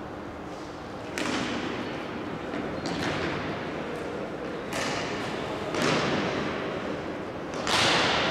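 Five sharp bangs at uneven intervals of one to two seconds, each ringing on in a large hall's echo; the last, near the end, is the loudest.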